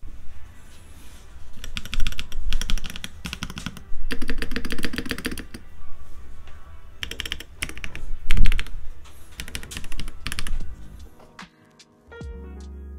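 Typing on a Keychron V1 Max hot-swap mechanical keyboard with Gateron Jupiter red linear switches and an ABS case, its keystrokes in fast runs with short pauses. The typing stops near the end and background music comes in.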